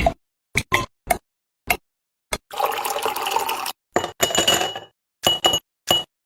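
Edited kitchen sounds: several short taps and clinks of dishes or glassware, about a second of running or pouring liquid starting about two and a half seconds in, then more clinks that ring briefly. The pieces are cut apart by dead silence.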